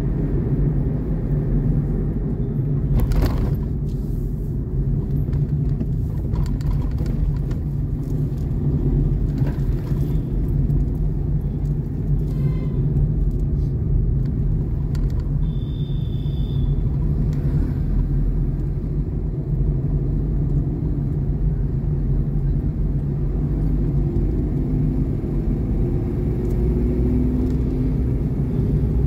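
Steady low rumble of a road vehicle moving along the road, heard from on board, with a short high-pitched tone about halfway through.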